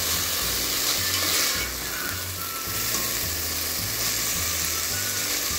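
Shredded cabbage, carrots and capsicum sizzling in a steel pot as they are stirred with a slotted spoon: a steady frying hiss while the water the vegetables released is cooked off.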